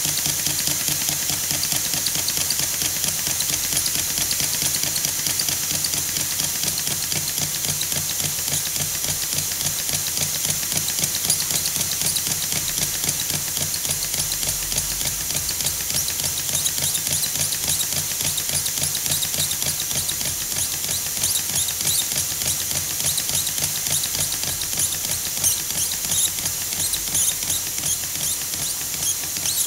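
Stuart S50 model mill engine running steadily on compressed air: a fast, even beat of air exhausting from the cylinder with a constant hiss and rapid mechanical ticking.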